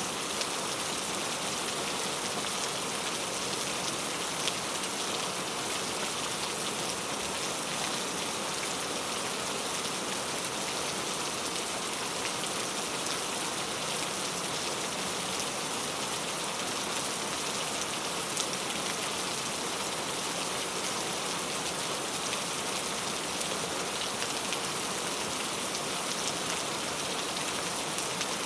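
Heavy rain falling steadily: a dense, even hiss of downpour with a few sharper individual drop hits.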